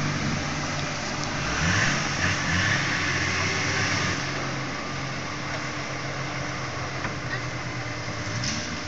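Off-road 4x4 engine revving as the vehicle climbs a steep dirt slope. The engine rises in pitch and is loudest in the first few seconds, then runs more steadily.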